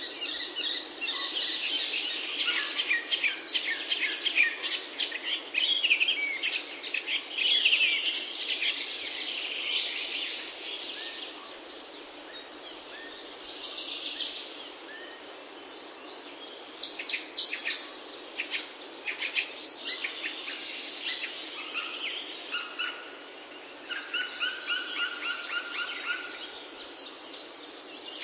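Several songbirds singing and chirping over a steady low hiss of forest ambience, with a quieter spell about halfway through.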